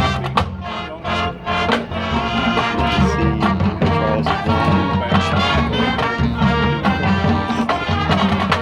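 High school marching band playing its field show: brass section carrying the tune over a steady drum beat.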